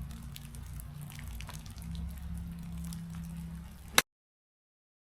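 Rain falling, with scattered drops ticking close by over a steady low rumble. About four seconds in comes one sharp, loud click, and the sound cuts off suddenly right after it.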